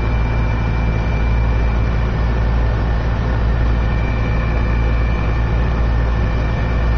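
Steady low rumble of a car driving slowly, heard from inside the cabin, with a faint thin high tone running through it.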